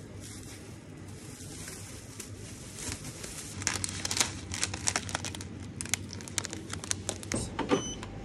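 Crinkling and crackling, dense and sharp, starting about three and a half seconds in, over a steady low hum.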